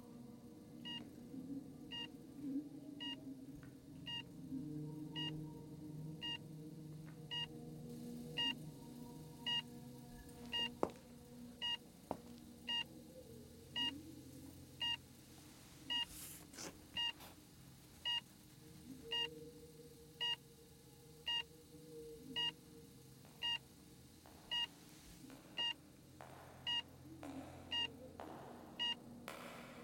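Electronic patient monitor beeping steadily about once a second, the pulse beep of a hospital heart monitor, over a low wavering hum.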